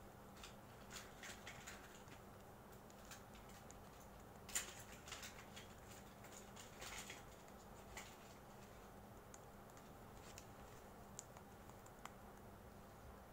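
Near silence with faint, scattered soft taps and clicks as fingertips dab BB cream onto the face, one sharper click about four and a half seconds in, over a faint steady hum.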